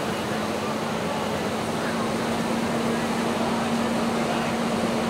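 Fire engine running steadily at a fire scene, a constant hum under a broad rushing noise of hose streams and fire, with faint voices in the background.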